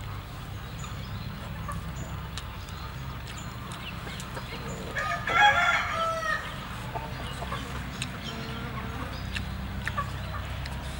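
A rooster crows once, about five seconds in, a call lasting about a second and a half, over a steady low rumble.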